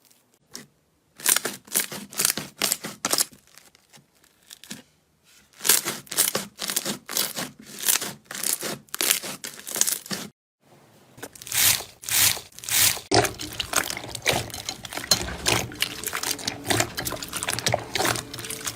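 Slime being squeezed and stretched by hand, giving rapid runs of sharp crackling clicks and pops, in three spells broken by brief silences.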